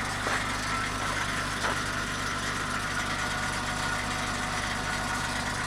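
Pickup truck engine idling steadily, left running to warm up and thaw the ice-covered truck. Two faint clicks in the first two seconds.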